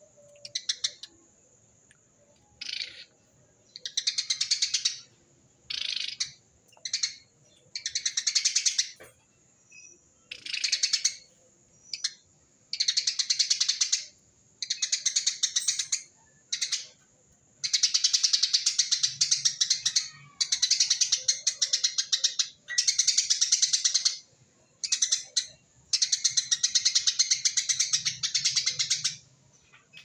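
Eurasian tree sparrow singing 'tembakan rapet': bursts of rapid-fire, tightly packed chattering notes, separated by short pauses. The bursts are short at first and run longer, about two seconds each, in the second half.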